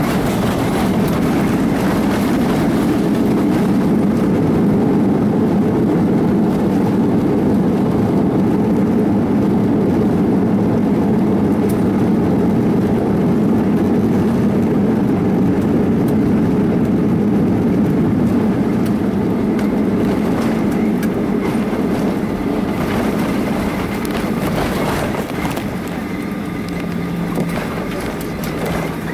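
Cabin noise of a Boeing 737 rolling out on the runway just after landing: steady loud jet engine and runway rumble that eases off over the last several seconds as the plane slows.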